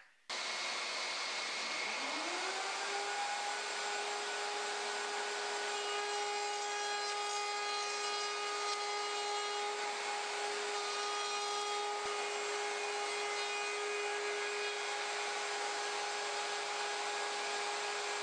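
A table-mounted router and a dust extractor running. The extractor's rushing noise starts suddenly. About two seconds in, the router motor spins up in a rising whine and settles into a steady high-speed whine while a wooden board is routed along the fence.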